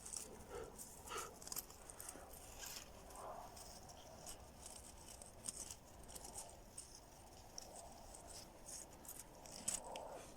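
Faint, scattered clicks and scratching of hand work on small metal parts and wire, irregular with no steady rhythm.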